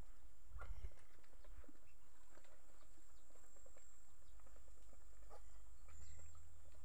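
Chickens and ducks in a yard giving short, scattered calls, with small clicks and scratches, over a steady low rumble.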